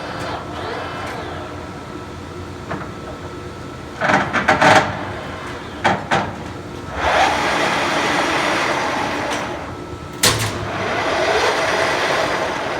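Turnmaster 15" x 50" engine lathe running under its own power, with a steady motor and gearbox whine. Several sharp clunks come about four, six and ten seconds in. Twice the running sound swells up again, as the spindle is run first at a lower speed and then at a higher one.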